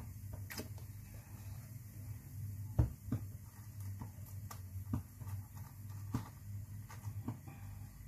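Light clicks and knocks of hands handling a plastic lunch box and bread rolls, with a sharper knock about three seconds in, over a steady low hum.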